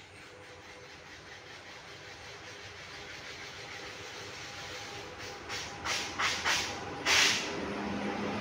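WAP-7 electric locomotive and its express train approaching, the running noise growing steadily louder, with several short hissing bursts in the second half, the loudest about seven seconds in.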